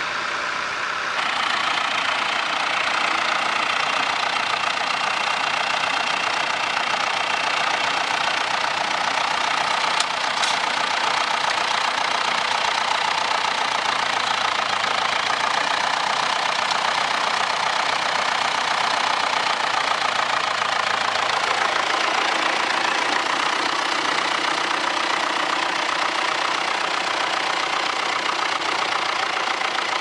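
Vintage tractor engine running steadily as it pulls a trailed plough through stubble. A steady low hum from the engine comes in about two-thirds of the way through, and there is one sharp click about a third of the way in.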